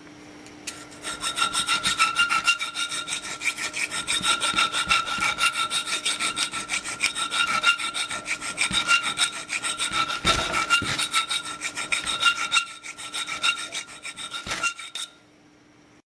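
A thin round file worked back and forth through the hole of a steel washer clamped in a bench vise, enlarging the hole, at about four strokes a second. The washer rings steadily under the strokes. The filing starts about a second in and stops shortly before the end.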